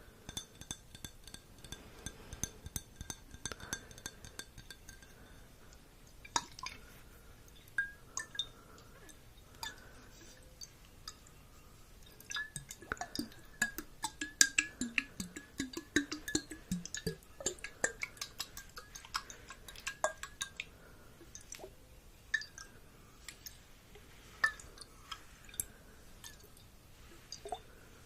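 Light clinking and tapping of glass close to the microphone, with a faint ringing tone that dies away about six seconds in and a busier run of quick clicks in the middle.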